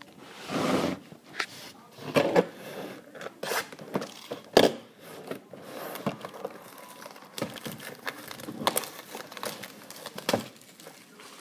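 Cardboard trading-card box and its wrapping being torn open and handled: tearing, crinkling and rustling with scattered sharp clicks, the loudest a snap about four and a half seconds in.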